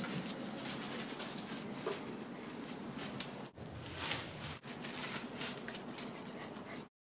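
Scottish terriers' paws pattering on a wooden deck: light scattered clicks and taps over a steady background hiss, cutting off suddenly near the end.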